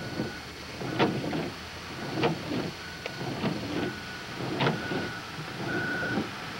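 Low engine rumble of vehicles in snow, broken by irregular sharp knocks and clunks, with a faint high beep coming and going about once a second.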